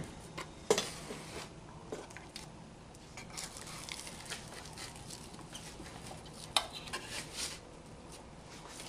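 Hands patting and pressing soft bread dough into metal loaf pans, a soft faint rustling, with a couple of light knocks against the pans.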